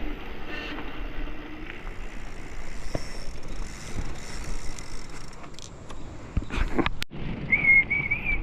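Mountain bike rolling over a rough trail: steady rumbling tyre and wind noise with scattered rattles. After a brief cut, a high wavering whistle comes in near the end.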